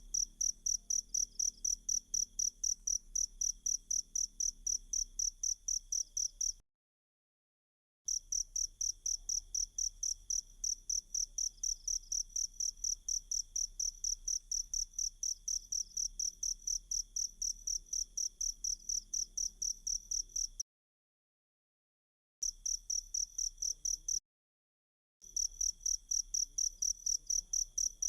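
A cricket chirping in a fast, even, high-pitched pulse of about six chirps a second. The chirping cuts off to dead silence three times, each time for one to two seconds, then starts again.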